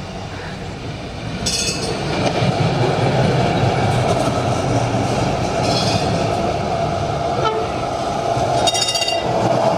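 Duewag articulated tram passing close by, its wheels and motors making a steady rumble that grows louder about a second and a half in. Three short high-pitched ringing sounds come over it, at about a second and a half, six seconds and nine seconds.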